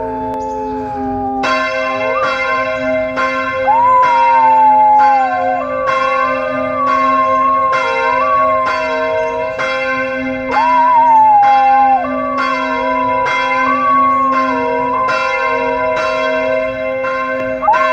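Church bells ringing in a steady run of strokes, about one and a half a second, starting about a second and a half in. A dog howls along over them in long howls that rise and then slide down in pitch, loudest a few seconds in, around the middle and again at the end.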